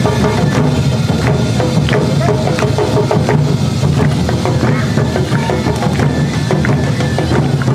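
Awa Odori narimono band playing: taiko drums and a kane gong striking the rhythm under shinobue flute melody.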